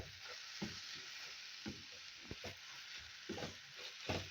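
Grated carrots frying in ghee in a kadai: a steady sizzle, with a spatula scraping and knocking against the pan at irregular intervals as the mixture is stirred. The carrots are cooked down far enough that the ghee is starting to separate from them.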